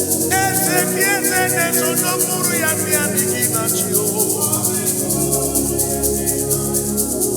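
Gospel worship music: band accompaniment with a steady shaker rhythm and gliding melodic lines, and a deep bass note joining about five seconds in.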